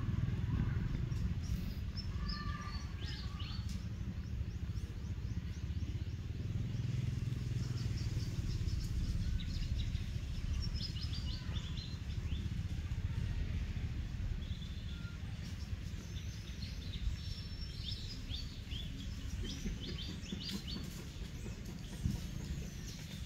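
Small birds chirping in short, scattered series of high notes, heard over a steady low rumble.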